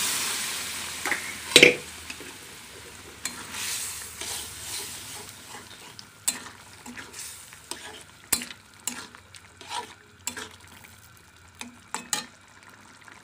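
Boiled taro stems are tipped into curry simmering in a metal wok, with a sizzling hiss that fades over the first couple of seconds and a sharp clank about one and a half seconds in. Then a metal spatula stirs the curry, scraping and clinking irregularly against the wok.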